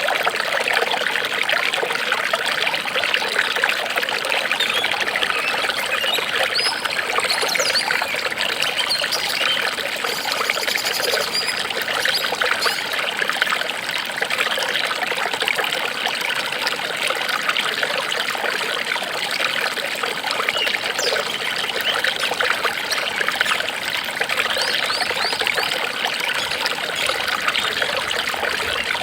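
Water trickling and splashing steadily, like a small stream or fountain, with a few faint high chirps here and there.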